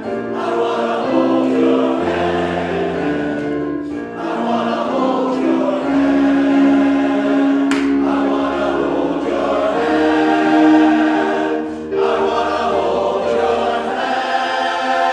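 Men's chorus singing in harmony, holding long notes, with a couple of brief breaks between phrases.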